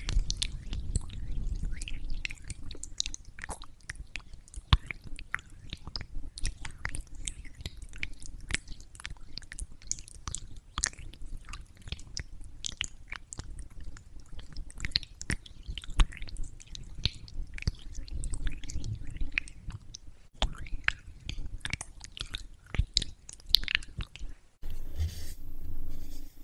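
Fingers massaging oily makeup-removing balm over a silicone mannequin face, making dense, irregular, sticky wet clicks and squishes. Near the end this changes to the softer rub of a tissue wiping the face.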